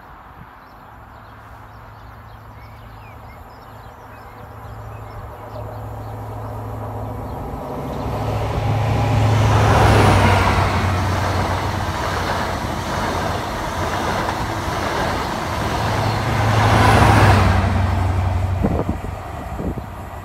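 High Speed Train (InterCity 125) with Class 43 diesel power cars 43366 and 43207 passing at speed. The leading power car's engine hum grows louder as it approaches and passes about halfway through, the coaches rumble by on the rails, and the trailing power car's engine passes a few seconds later before the sound fades.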